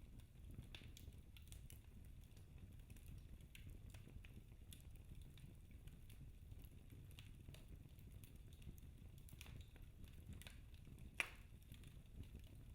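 Fire in a fireplace crackling softly with scattered small pops over a low rumble, and one sharper pop about eleven seconds in.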